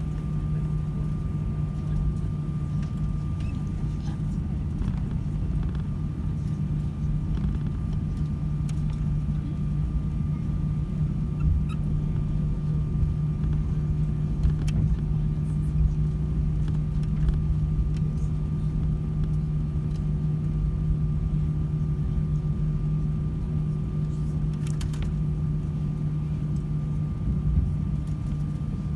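Cabin noise of an Airbus A320-232 taxiing: a steady low hum from the idling IAE V2500 engines and air conditioning, with a faint steady whine and a few light clicks and knocks.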